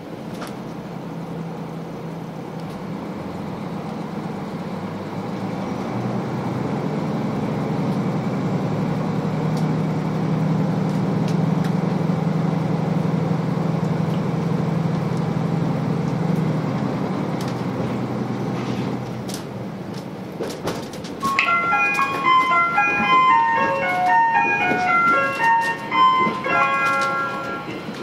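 KiHa 185 diesel railcar's engine working under power as the train pulls away, heard inside the passenger cabin; its low drone grows steadily louder, then eases off after about 16 seconds. About 21 seconds in, the JR Shikoku onboard chime plays a short melody, the signal that a conductor's announcement is about to start.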